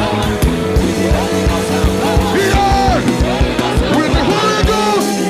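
Live gospel worship band playing, with a singer's wordless melodic runs over a steady beat.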